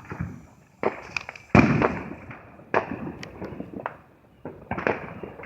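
Consumer fireworks going off in a string of sharp bangs, the loudest about a second and a half in, each fading out quickly.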